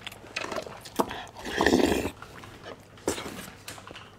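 A person slurping a spoonful of thick yogurt: one loud slurp about one and a half seconds in, with small mouth clicks and smacks before and after it.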